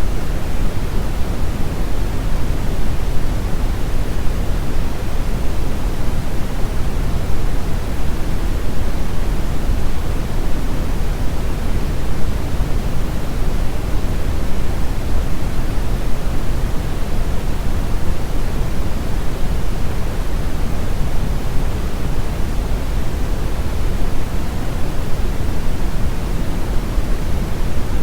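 Steady generated noise sound effect: an even, unbroken rushing hiss, heavier in the low end than in the highs.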